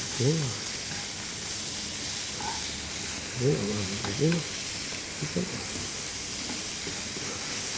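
A frying pan of potato strips and salt cod strips sizzling steadily in hot oil.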